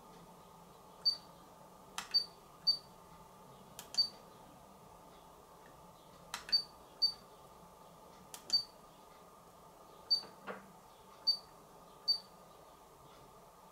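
Short high electronic beeps, about ten of them, irregularly spaced, several coming just after a sharp button click: the monitor's control buttons being pressed to step through its on-screen settings menu.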